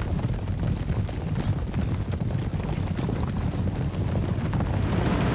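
Sound effect of many horses galloping in a cavalry charge: a dense, low rumble of hoofbeats that grows a little louder toward the end.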